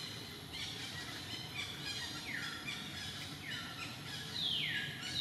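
A bird calling: a few short chirps, then a run of long falling whistles about a second apart, the last one loudest, over a steady outdoor hum.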